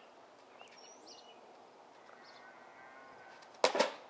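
Faint outdoor background, then a quick run of three or four sharp knocks near the end.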